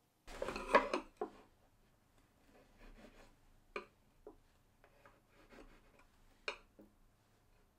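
Faint pencil scratching on plywood and a few light clicks and taps as a steel rule with a wooden stop block is set down and slid along to mark out hole spacings. A brief rubbing sound comes first.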